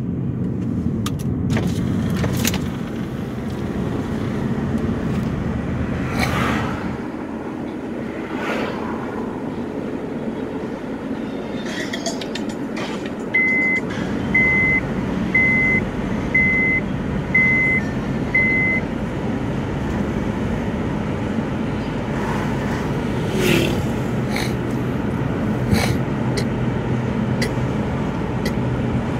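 Car engine and road noise heard from inside a moving car following another car. About halfway through comes a run of six short, evenly spaced high electronic beeps.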